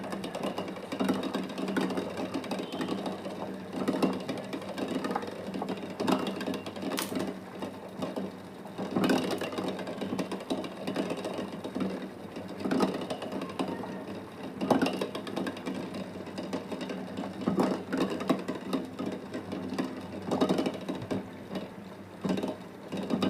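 An egg rattling and knocking against the pot as the water boils, an irregular run of clicks and taps over a steady low hum.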